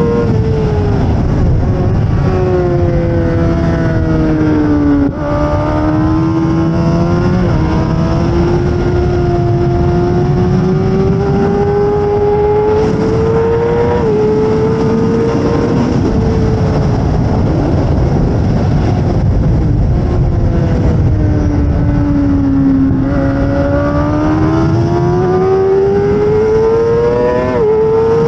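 2008 Suzuki GSX-R600's inline-four engine at high revs under race riding, with heavy wind rush. Its pitch sags as the rider backs off, climbs again under acceleration, and jumps abruptly at gear changes, with a sharp drop near the end.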